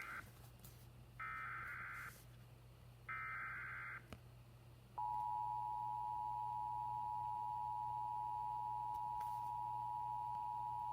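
Emergency Alert System tornado warning tones: three short digital data bursts of the SAME header, about a second each, then about five seconds in the steady two-tone EAS attention signal starts and holds.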